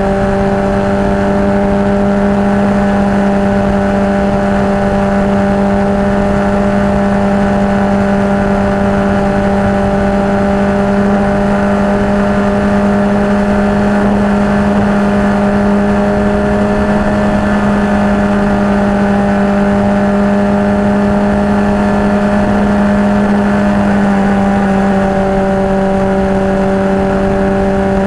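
Suzuki GSX-R750's inline-four engine running at a steady cruising pace, its pitch holding nearly constant, under a constant rush of wind and road noise.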